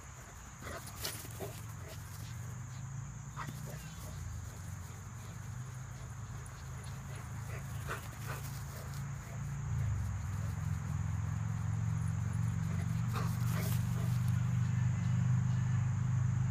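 Dogs at play, a black Labrador and a Maltese, giving a few short, scattered yips and whimpers over a steady low rumble that grows louder about ten seconds in.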